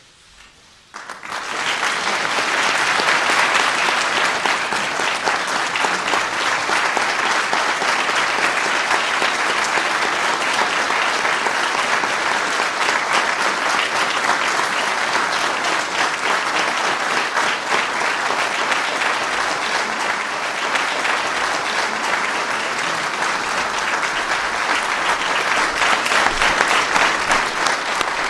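A large audience applauding: a dense, steady mass of clapping that starts abruptly about a second in.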